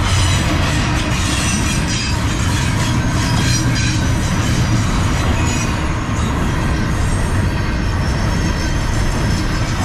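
Double-stack intermodal well cars rolling past at close range: a steady, loud rumble of steel wheels on rail, with high-pitched metallic wheel squeal coming and going.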